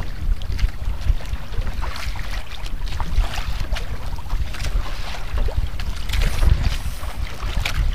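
Wind buffeting the microphone in a steady, uneven low rumble, with small waves lapping and splashing against the hull of a wooden outrigger fishing boat.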